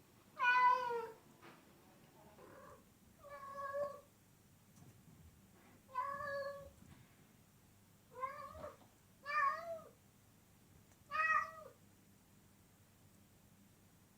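Domestic cat meowing repeatedly: about six separate meows a second or two apart, the first the loudest.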